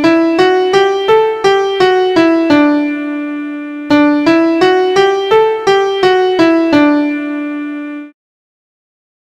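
A piano-toned keyboard plays a short melody of about eight quick notes ending on a held low note, then plays the same phrase again. The sound cuts off about eight seconds in.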